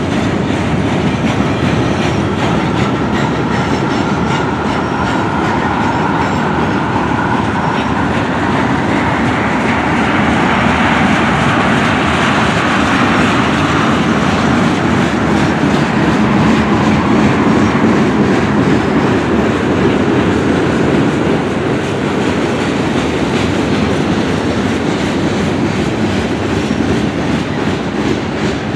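Freight train cars rolling steadily past at close range: steel wheels running and clattering on the rails in a continuous rumble.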